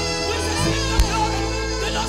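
Live gospel worship music: held keyboard chords over a bass line, with voices singing over it. One sharp thump sounds about halfway through.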